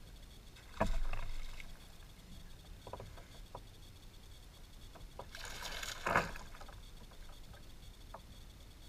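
A hooked largemouth bass thrashing and splashing at the water's surface: one loud splash about a second in, then a longer bout of splashing a little after the middle. A few light clicks fall in between.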